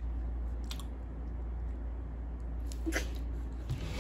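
Low steady hum of room tone with a few faint short clicks and taps.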